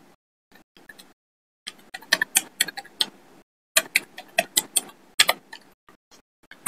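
Keys of a handheld calculator being pressed: a long run of light plastic clicks in quick, irregular bursts with short pauses between them, as a multiplication is keyed in.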